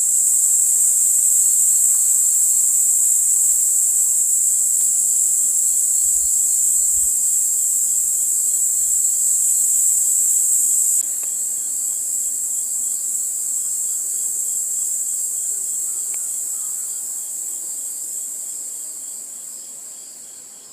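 A steady, high-pitched insect chorus, a continuous buzzing. It drops suddenly about eleven seconds in, then fades away toward the end.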